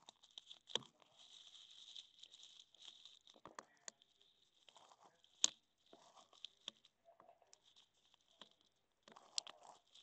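Faint rustling and crackling with scattered sharp clicks: a Nile monitor's claws and body moving over dry wood-chip bedding.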